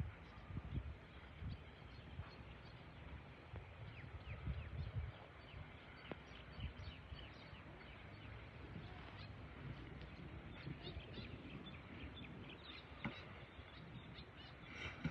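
Small birds chirping over and over in short falling notes, with a low irregular rumble underneath.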